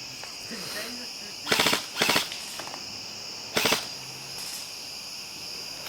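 Three short bursts of rapid full-auto airsoft gun fire, the first two close together about a second and a half in and the third about two seconds later. Crickets chirp steadily behind them.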